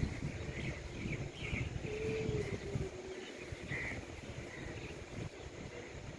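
Birds calling in short, scattered chirps over a low, steady rumble of outdoor noise.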